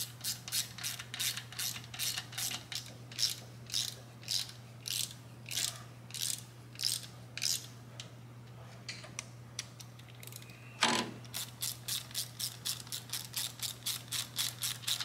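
Hand ratchet clicking as a socket runs down the cam sprocket and crank pinion bolts in a Harley-Davidson Twin Cam's cam chest. It goes in short strokes of a few clicks at first, stops for a couple of seconds past the middle, then clicks off a quicker run near the end.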